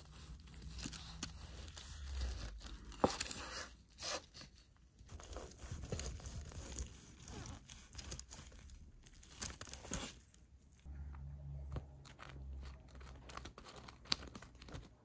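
Large knife slicing through grilled pork with a crisp, charred crust: a run of irregular crunching cuts.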